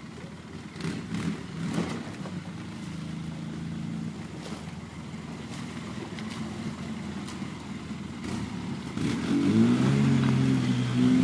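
Polaris RZR S side-by-side engine running at low speed while crawling down rocks, with a few sharp knocks. About nine seconds in it revs up and gets louder.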